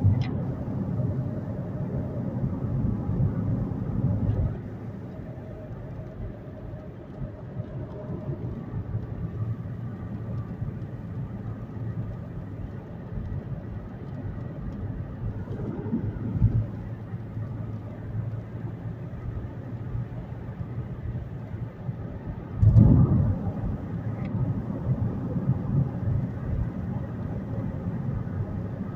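Car cabin noise while driving: a steady low rumble of tyres and engine, louder for the first few seconds. It swells briefly twice, about halfway through and more strongly a little later, as oncoming traffic passes.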